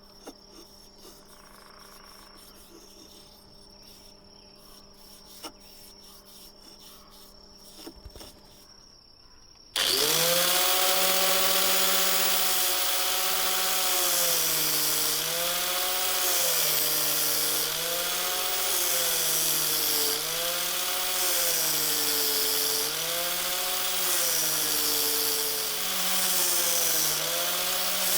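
After about ten seconds of faint background hum, an electric power tool starts suddenly and runs loudly on wood, its motor pitch repeatedly dipping and recovering every second or two as it is loaded and eased off.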